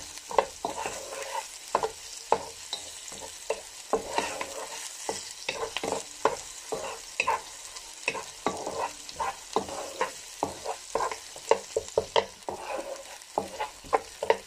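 Chopped onion and garlic sautéing in hot oil in a kadhai, sizzling steadily, while a wooden spatula scrapes and knocks against the pan in quick, irregular strokes.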